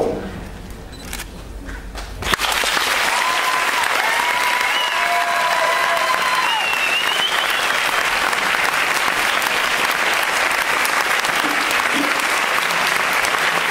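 Audience applause that breaks out suddenly about two seconds in and keeps up steadily, with a few long high whistling sounds over it between about three and seven seconds in.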